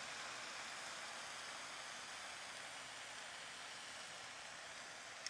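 Sliced steak sizzling faintly on a Pit Boss two-burner griddle, a steady even hiss that fades a little, with a small click near the end.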